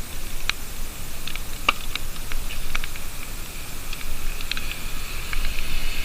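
Rain: a steady hiss with scattered drops ticking irregularly on nearby surfaces.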